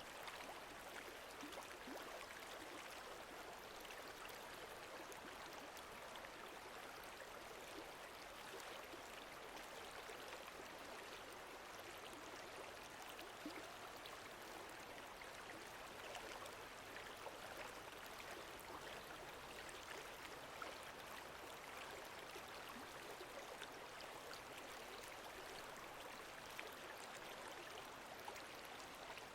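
Lake water lapping and trickling steadily and quietly, with many tiny splashes and drips.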